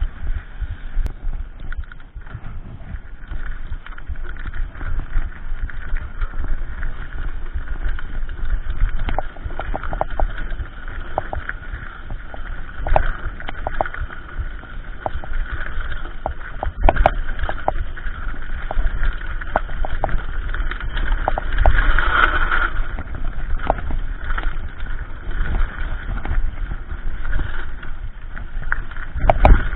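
Mountain bike riding a dirt trail: steady rush of wind and tyre noise with frequent sharp clicks and knocks as the bike rattles over bumps and roots.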